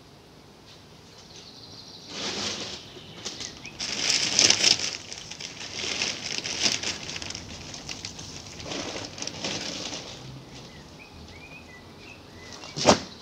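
Plastic bag rustling and crinkling in irregular bursts as a bundle of cargo is handled out of it, with one sharp loud crackle near the end.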